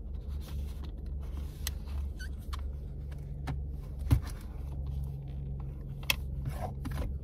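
Plastic clicks and taps from a drink bottle's flip-top lid being handled and screwed onto the bottle, the sharpest click about four seconds in and another about two seconds later, over a steady low hum inside a car.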